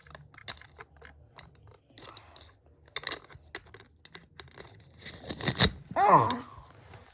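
Handling of toy kitchen play food and a toy knife: a run of small clicks and taps, with a loud ripping, tearing sound about five seconds in.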